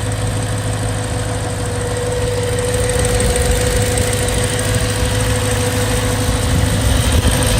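BMW E92 M3's S65 4.0-litre V8 idling steadily with an engine ticking noise, a fault the owner reports as worse cold and still present warm.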